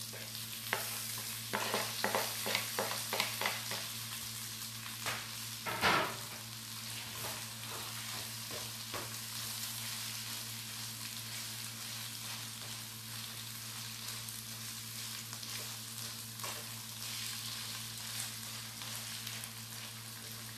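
Fried eggplant cubes and ground lamb sizzling steadily in a hot wok while a spatula scrapes them off a plate and stirs them in. A run of spatula knocks and scrapes comes in the first seconds, the loudest at about six seconds, then steady sizzling under the stirring.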